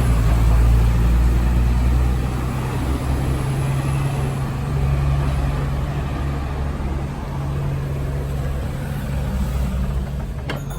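Steady low rumble of a vehicle's engine, with an even low hum.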